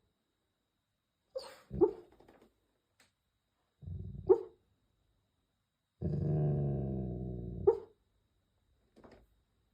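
Golden retriever snoring in deep sleep: four rumbling snores, the third the longest at about two seconds, most ending in a short sharp puff.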